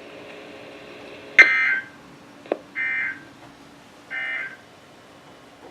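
EAS end-of-message data bursts on NOAA Weather Radio: three short, buzzy digital tone bursts about 1.3 seconds apart, marking the end of the warning. A single click comes between the first and second burst, over a faint steady radio hum.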